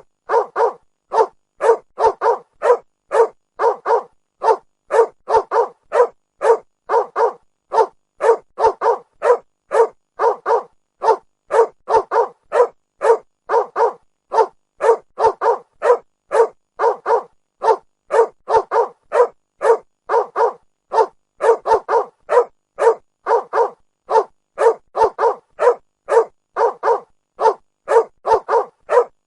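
A dog barking over and over in quick, sharp, evenly spaced barks, about three a second, in runs of several barks with short pauses between.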